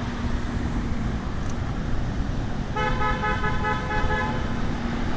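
A car horn sounds once about three seconds in: a steady honk lasting just over a second, over continuous street traffic noise.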